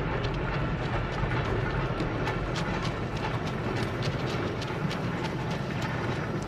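A rail vehicle running along the track: a steady low rumble with a quick, irregular clatter of clicks.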